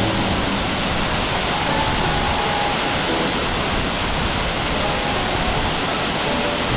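Steady, loud rush of fast-flowing mountain stream water pouring over rocks and small falls.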